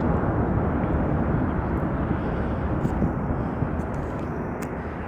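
Jet aircraft engines rumbling, the sound slowly fading as the aircraft moves away.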